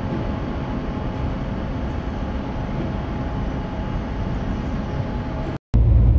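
Lorry engine running steadily, with an even rush of noise. Near the end the sound cuts out for a moment, then comes back as a louder, deeper engine rumble.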